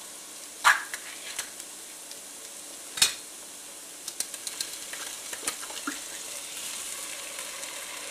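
Sliced onions and butter sizzling steadily in a skillet, with a spoon clacking and scraping against the pan and the soup can; the sharpest clack comes about three seconds in.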